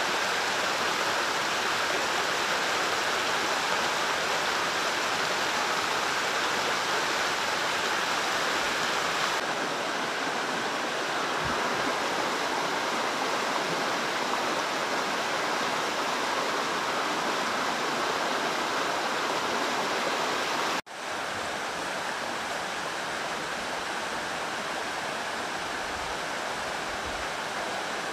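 Steady rush of a stream's running water. It cuts out for a moment about three-quarters of the way through, then carries on.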